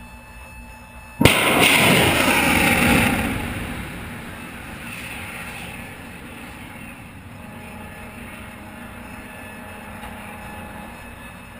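Shipboard missile launch: a sudden blast about a second in, then the rocket motor's roar for about two seconds, fading as the missile climbs away, over steady wind and ship noise.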